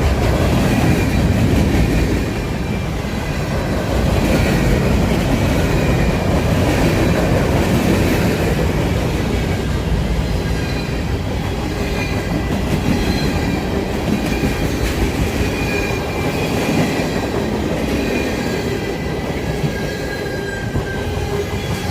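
Freight train rolling past at close range: a steady, loud rumble of the cars on the rails, with thin, high wheel squeal running through it.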